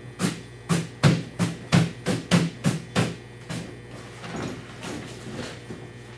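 A quick run of about ten sharp knocks, roughly three a second, dying away after about three and a half seconds, over a steady mains hum.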